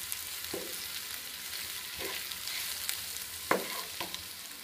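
Boiled potato pieces and onions sizzling steadily in oil in a nonstick pan while a spatula stirs and scrapes through them, in a few separate strokes, with a sharp knock of the spatula against the pan about three and a half seconds in.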